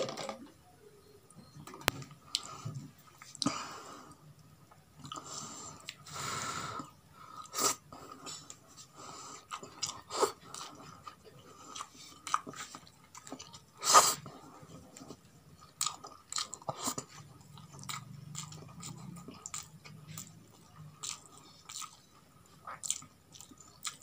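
Close-up eating sounds of roasted chicken: chewing and biting, with many short wet clicks and crunches and one louder sharp crunch about fourteen seconds in.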